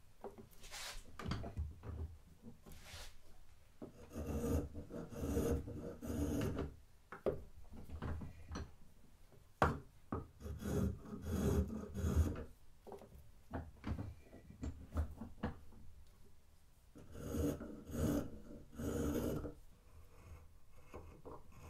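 A small brass Lie-Nielsen spokeshave taking repeated short cutting strokes across an oak mallet, a scraping of steel on wood with brief pauses between strokes. There are a couple of sharp taps in the middle.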